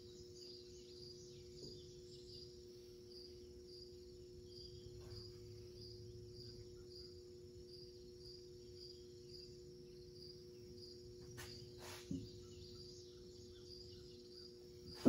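Crickets chirping in an even pulse about twice a second over a steady low hum, with a couple of light clicks late on.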